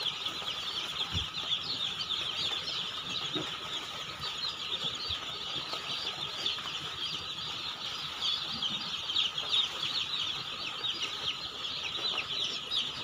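A large flock of young chicks in a brooder peeping all together: a dense, steady chorus of many overlapping high chirps.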